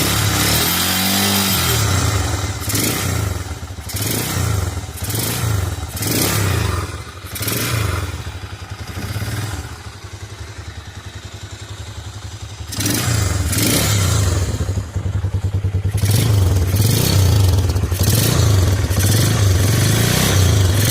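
Carbureted motorcycle engine revved in repeated throttle blips through its exhaust, dropping back to a steady idle for a few seconds around the middle, then revved hard again.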